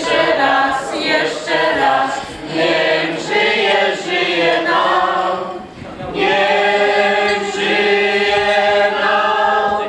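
A group of people singing together without accompaniment, with glasses raised as in a toast song. The first half comes in short sung phrases; about six seconds in they hold one long note to the end.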